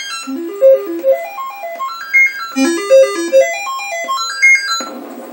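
Commodore 128 diagnostic cartridge's sound test on the 6581 SID chip: quick runs of stepped electronic beeping tones, climbing and falling over and over. About five seconds in the tones stop and a steady hiss takes over.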